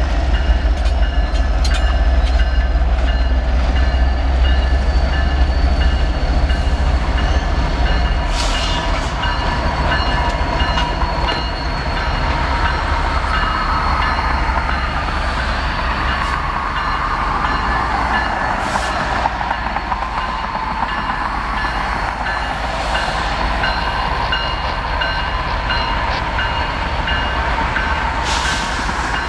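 Norfolk Southern diesel locomotives, among them GE ES44AC 8099, running and rumbling steadily as they move slowly through the yard. Road traffic passes a few times, once near the end.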